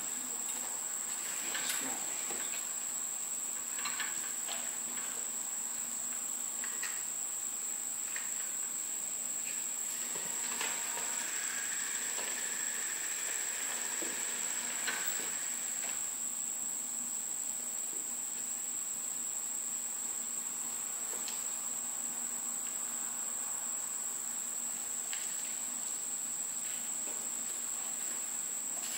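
Steady high-pitched drone of insects with no break, and a few light knocks and rattles in the first half.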